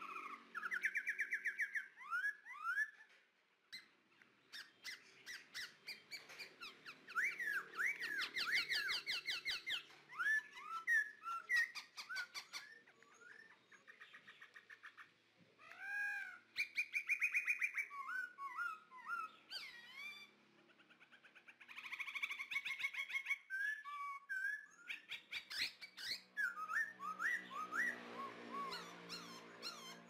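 Several forest birds calling and singing in bursts: quick chirps, rapid trills and whistled notes that slide up and down in pitch.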